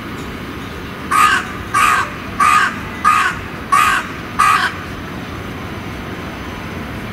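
A crow cawing six times in an even series, about one and a half caws a second, starting about a second in.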